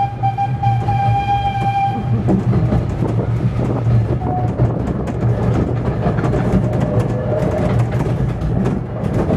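A 15-inch gauge miniature train running, heard from inside its carriage: a steady rumble with quick clicks of wheels over the rail joints and a couple of short faint squealing tones. A held signal tone from the locomotive carries on into the opening and stops about two seconds in.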